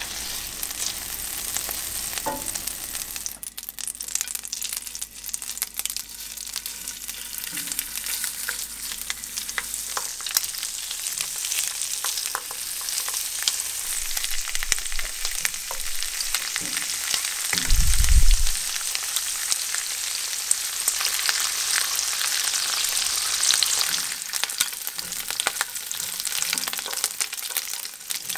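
Squid frying in melted butter in a nonstick frying pan: a steady sizzle with fine crackling spatters that grows louder as the squid cooks. A single low thump about two-thirds of the way through.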